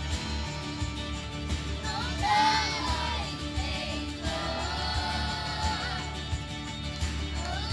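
A song with a singing voice over an instrumental accompaniment with a steady beat.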